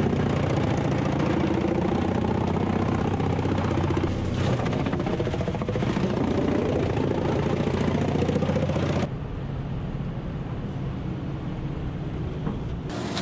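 Engine of a wood-chipping machine running steadily under load, with a rapid knocking texture. About nine seconds in it cuts abruptly to a quieter, steady engine sound.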